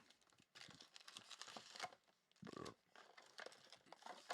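Faint crinkling and tearing of a foil trading-card pack wrapper being opened and handled, with scattered small crackles and ticks.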